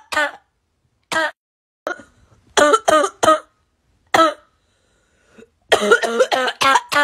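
Repeated coughing: single coughs about a second apart, then a quick run of three, another single cough, and a fast string of coughs near the end.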